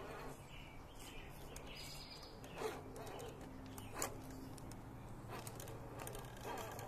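RC rock crawler climbing a rock face: the faint steady hum of its electric motor and gearing, with two sharp knocks, about a second apart near the middle, as its tires or chassis hit the rock.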